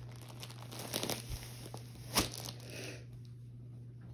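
Plastic packaging crinkling and rustling as a fabric gift is unwrapped and pulled out of it, with one sharp crackle about two seconds in; the crinkling stops about three seconds in.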